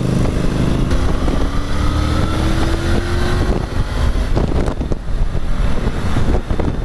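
Triumph Tiger three-cylinder engine pulling hard under acceleration in fifth gear, its note rising for about three seconds, with wind rushing over the microphone at highway speed.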